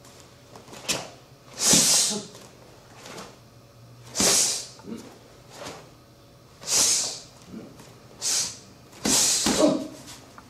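A karateka's short, forceful breaths, pushed out in time with the kata's techniques: about seven sharp, breathy bursts, two of them in quick succession near the end.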